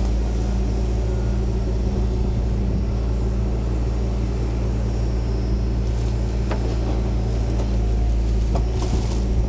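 Backhoe's diesel engine running at a steady pitch while its hydraulic boom lowers the bucket into the trench, with a couple of faint knocks near the end.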